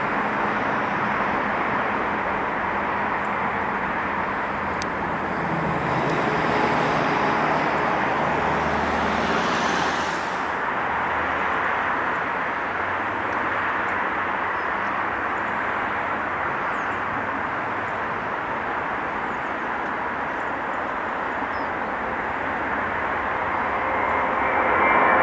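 Antonov An-124's four Progress D-18T turbofan engines running as a steady jet roar during take-off, growing louder near the end.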